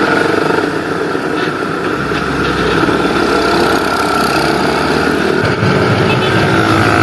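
Kawasaki Ninja RR two-stroke motorcycle engine running steadily while riding on the road; its low note shifts about five and a half seconds in.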